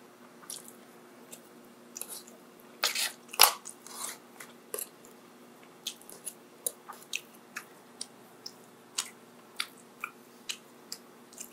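Close-miked person chewing and biting food, mukbang style: a cluster of louder bites about three seconds in, then regular chewing clicks about one to two a second.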